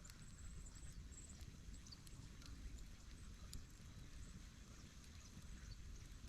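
Near silence: faint outdoor ambience with a few faint high chirps and scattered ticks.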